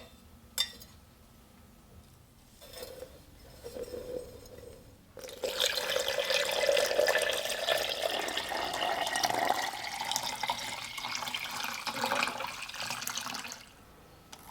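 A small clink near the start, then water running and splashing for about eight seconds from about five seconds in, stopping near the end.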